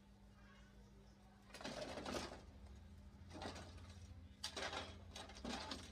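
Printer parts being handled during disassembly: four short bursts of knocking and rattling, the first about a second and a half in, over a steady low hum.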